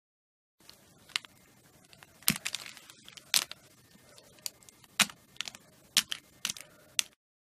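Plastic wrestling action figures handled and knocked together: a string of about a dozen sharp, irregular clacks over a faint hiss, starting about half a second in.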